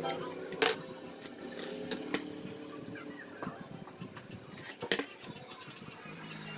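Metal parts of a dismantled angle grinder being handled on a workbench: the armature and housing give a few sharp clicks and knocks, the loudest a double knock about five seconds in.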